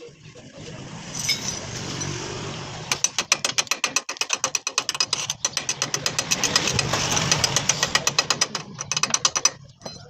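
Metalworking on a truck's cracked steel chassis: a steady hiss, joined about three seconds in by rapid, even clicking of about a dozen a second, which stops suddenly near the end.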